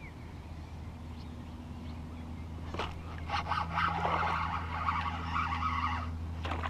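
A small fish hooked on a topwater frog lure splashes at the surface about three seconds in. A fishing reel is then cranked quickly for a few seconds as the fish is pulled toward the kayak, and there is another splash near the end, over a steady low hum.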